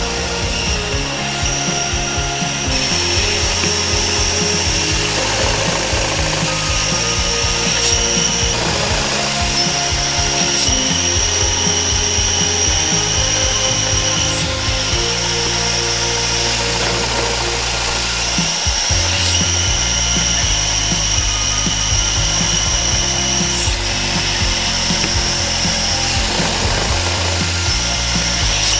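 Daewoo Heavy Industries vertical milling machine running, its cutter machining a stainless steel scissor blade held in a fixture. A steady high whine stops and starts again a few times. Background music plays underneath.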